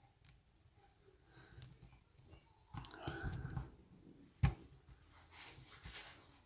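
Small clicks and scraping of a lock pick and tension tool working inside a Bi-Lock oval padlock. A louder stretch of scraping comes nearly three seconds in, and one sharp click a little after four seconds.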